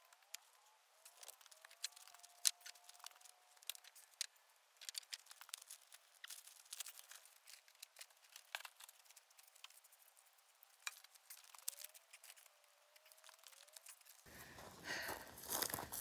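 Scattered faint knocks and clatter of old wooden pallet boards being handled and stacked, with dry crackling. About fourteen seconds in, a louder close-up crackling and crunching starts as a board is lifted next to the camera.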